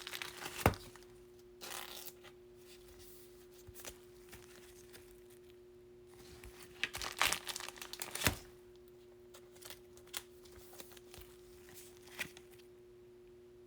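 Baseball cards being handled and sleeved: plastic card sleeves crinkling and cards rustling and clicking in scattered short bursts, with a faint steady hum underneath.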